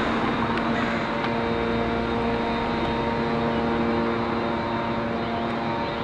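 A vehicle engine idling: a steady, unchanging hum.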